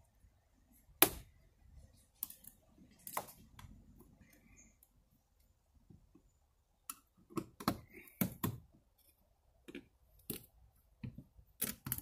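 Sharp, scattered clicks and scrapes of a screwdriver working at an RV's outside outlet cover as it is loosened and pulled free. The loudest click comes about a second in, and a denser run of clicks follows in the second half.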